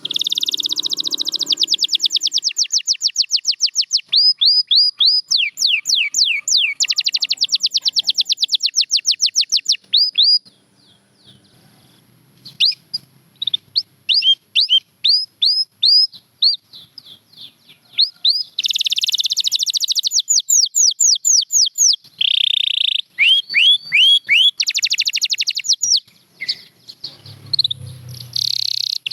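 Domestic canary singing: long, fast trills of rapidly repeated notes alternating with series of downward-sliding whistled notes. There is a short break about ten seconds in before the song resumes.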